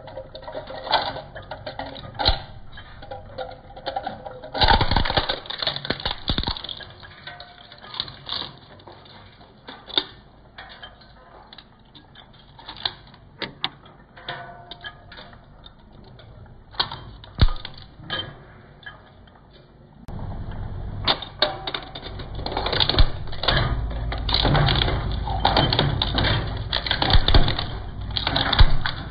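Twin-shaft shredder's interlocking steel cutter discs crunching up hard plastic pieces: an irregular clatter of cracks and snaps. About twenty seconds in, the grinding turns louder, denser and heavier.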